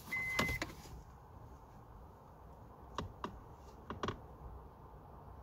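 Light plastic clicks and taps as the detached clock/climate display unit is handled and lifted out of the dash opening, a handful of them, most around three to four seconds in. A short steady electronic beep ends about half a second in, the last of a beep repeating about once a second.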